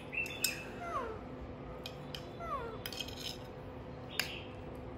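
Baby macaque giving two short calls that fall in pitch, about a second and a half apart, begging to be fed. A single sharp click comes near the end.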